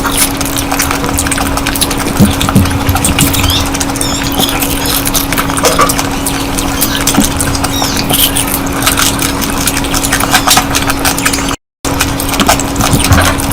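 Close-miked chewing and eating sounds: a dense run of wet mouth clicks over a steady low hum, with a brief cut-out in the audio near the end.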